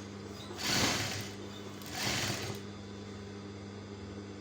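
Sewing machine stitching a trouser seam in two short bursts about a second apart, over a steady low hum.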